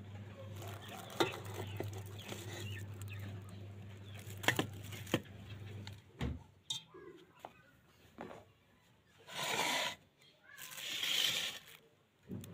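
Sharp metal clinks from a steel plate knocking against the wire stand inside a large cooking pot as the plate is handled, over a low steady hum that cuts off about six seconds in. Near the end, two loud calls from an animal.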